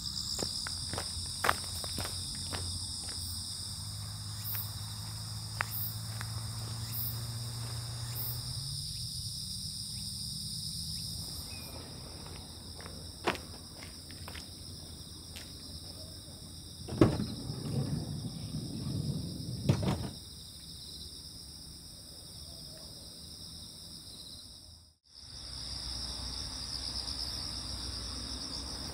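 Insects, crickets or similar, singing in a steady high-pitched chorus. It is broken by a few sharp clicks and a louder stretch of rustling and knocking about two-thirds of the way in, and it cuts out for a moment near the end.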